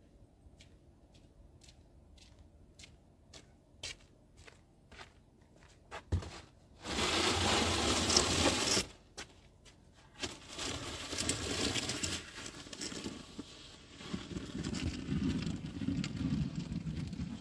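Snow shovel pushed along a snow-covered concrete driveway, scraping and crunching through the snow. A first loud push comes about seven seconds in, and a longer, uneven stretch of shovelling follows from about ten seconds; before that only faint scattered crunches.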